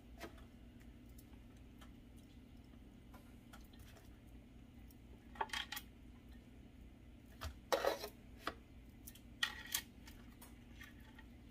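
Marinated turkey legs being lifted out of a stainless steel pot and laid in a disposable aluminum foil pan: short crinkly taps and knocks in three brief clusters, about five, eight and nine and a half seconds in.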